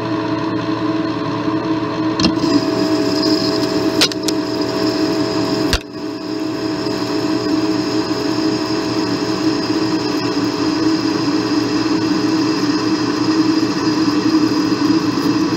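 Metal lathe turning aluminium: the spindle running steadily while the carbide insert takes a roughing cut at about 800 RPM and 14 thousandths per revolution, with a higher whine joining about two seconds in as the cut gets going. A few sharp clicks come in the first six seconds. The chips come off stringy, a sign the aluminium is not cutting cleanly.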